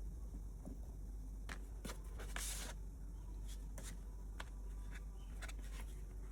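Hands handling small plastic packaging of press-on nails: a string of light clicks and taps, with a short scratchy rustle about two seconds in, over a low steady hum.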